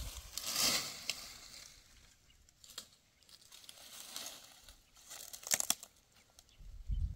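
Dry wheat stalks crunching and rustling in a few short bursts, about a second in, then again around four and five and a half seconds.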